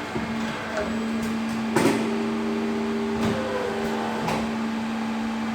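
CNC pipe bending machine running: a steady motor hum with a few clunks, the loudest about two seconds in, and lighter knocks later.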